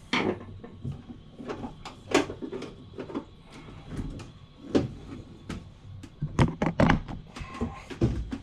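Irregular knocks, clicks and scrapes of hand tools working at a stubborn slotted screw in old bathroom fittings, with a denser run of knocks a little after the middle.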